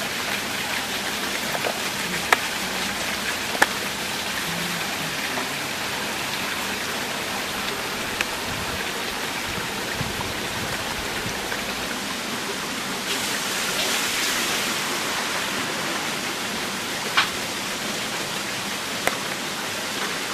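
A steady, even hiss with a few faint clicks scattered through it. It grows a little louder for a couple of seconds around the middle.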